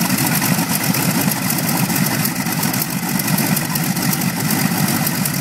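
North American P-64's Wright R-1820 Cyclone nine-cylinder radial engine running steadily at low idle, with a fast, even firing pulse. The engine has just been brought back to life after about 20 years without running.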